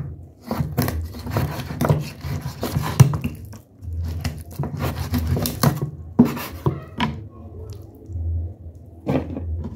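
Cleaver chopping raw chicken on a wooden cutting board: a run of uneven knocks as the blade goes through the meat into the board, the loudest about three seconds in, thinning out over the last few seconds.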